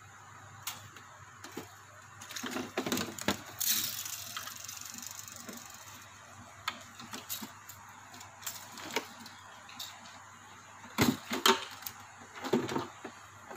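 Scattered clicks, taps and rustles of hands working wire leads and plug connectors on an air cooler's circuit board, with a rustle two to four seconds in and a cluster of louder knocks against the plastic housing near the end.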